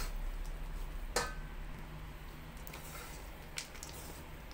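Rubber scraper stirring syrup-coated oats and chopped nuts in a metal bowl: faint rustling with a few light clicks, the sharpest about a second in, over a steady low hum.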